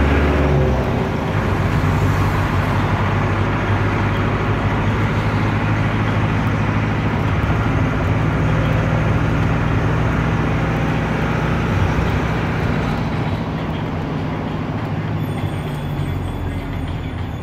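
Air-cooled Deutz F4L912 four-cylinder diesel of an Otokar M-2000 minibus running under way, heard from the driver's cab along with road noise. Its low note shifts about a second in, and it grows quieter near the end.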